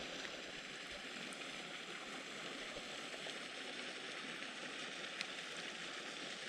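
Steady rushing of water, even and unbroken, with a couple of faint clicks.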